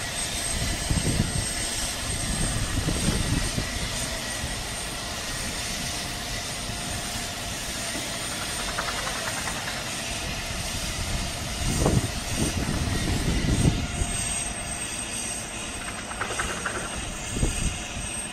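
Crane truck's engine running steadily to drive a knuckle-boom crane lifting a steel beam. There are a few louder low rumbling swells, about a second in, around three seconds, and twice near twelve to fourteen seconds.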